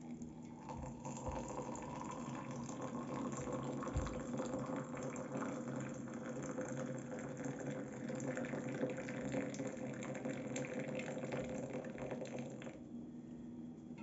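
Hot water poured in a thin stream into a glass mug holding a tea bag and a lemon slice, splashing steadily as the mug fills. The pouring stops sharply near the end.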